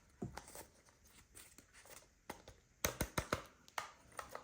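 Faint plastic clicks and rattles from a toy gun being handled and worked, with a quick run of clicks about three seconds in.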